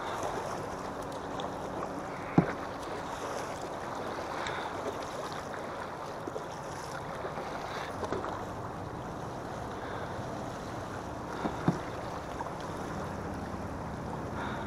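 Choppy river water washing and splashing against a kayak's hull, with wind on the microphone. Two sharp knocks stand out, one about two seconds in and another about nine seconds later.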